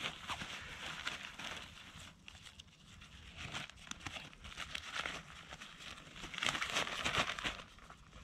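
Fabric stuff sack of an Alps Mountaineering Lynx 1 tent rustling and crinkling as it is handled and its top is pulled open, in irregular bursts, loudest a little over six seconds in.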